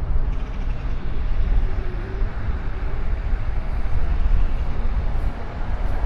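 Wind rumbling on the microphone of a moving bicycle, with road noise: a steady low buffeting that fluctuates without let-up.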